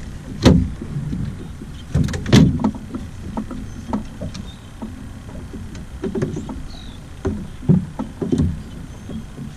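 Scattered knocks and clunks of fishing gear being handled aboard a small boat, as a crappie goes into the live well and the landing net is moved. Two sharp knocks stand out, one about half a second in and the loudest about two and a half seconds in.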